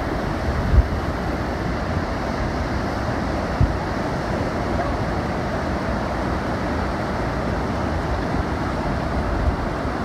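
Gulf of Mexico surf breaking on a sandy beach, a steady wash of waves, with wind buffeting the microphone in a couple of brief low thumps.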